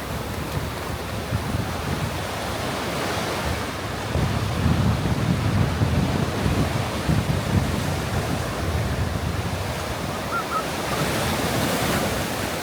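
Sea surf breaking and washing up a sandy beach, with gusty wind buffeting the microphone; a wave's wash swells louder near the end.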